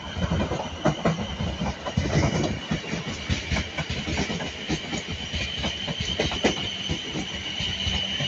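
South Western Railway Class 444 Desiro electric multiple unit running past over points and rail joints, its wheels clicking irregularly over the joints on a steady low rumble. A steady high-pitched wheel squeal runs alongside.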